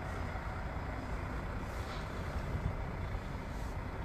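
Steady low rumble of a vehicle driving along, engine and road noise.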